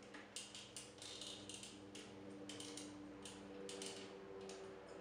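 Small plastic parts of a snap-together robot model kit clicking and ticking as the head and helmet are moved and seated. About a dozen soft, irregular clicks over a faint steady low hum.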